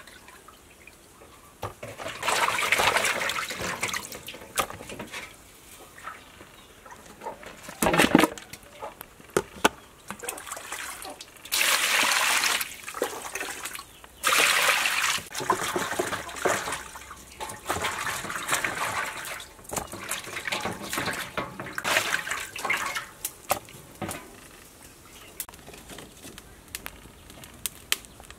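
Raw chopped chicken being washed in water: several bursts of pouring and splashing, with short clicks of handling in between.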